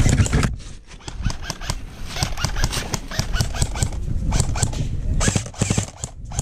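Footsteps and gear clatter of an airsoft player moving forward: a dense, irregular run of clicks and knocks, with a louder cluster near the end.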